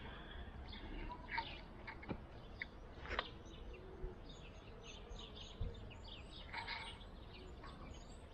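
Small birds chirping in quick, scattered high notes, more thickly in the second half, with a few brief knocks and rubs close to the microphone.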